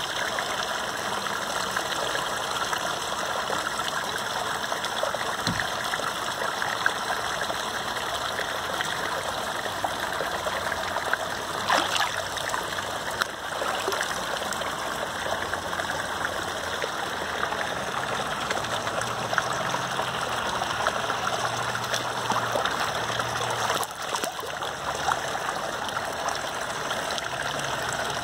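Steady rush of running water, hot-spring water flowing and trickling into a soaking pool. A couple of brief clicks come about halfway through.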